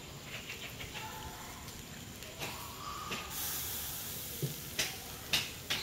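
Marinated chicken pieces sizzling as they go onto the grate of a small charcoal grill over glowing coals. The sizzle is louder from about three to nearly five seconds in, with a few light clicks near the end.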